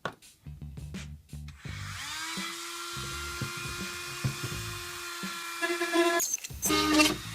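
A small power drill spins up about two seconds in and runs with a steady whine, drilling holes in a Lexan plastic body. Near the end it gives a few louder, rougher bursts. Background music with a beat plays throughout.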